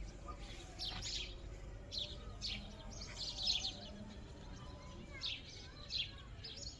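Birds chirping: short, high chirps repeated every half second to a second, over a steady low hum.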